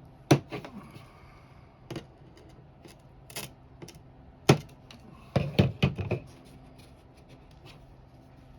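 Sharp knocks and clicks from handling window parts: two hard ones about a third of a second and four and a half seconds in, single ones near two and three and a half seconds, and a quick run of four or five just before six seconds.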